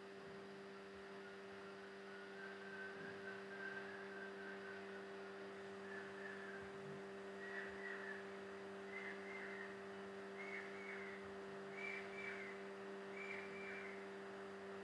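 Steady low electrical hum. From about six seconds in, faint short whistled notes repeat about every second and a half, each a little higher in pitch than the last.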